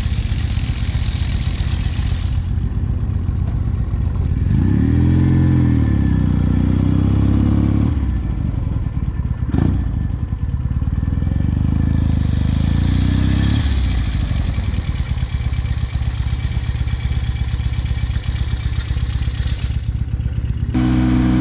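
1968 Norton Commando's 750 cc parallel-twin engine running. The revs rise about four seconds in and are held up for several seconds before dropping back to idle. There is one sharp click about ten seconds in.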